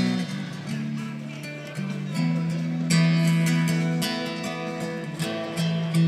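Acoustic guitar being strummed and picked, its chords ringing and changing every second or so, with stronger strums about two and three seconds in.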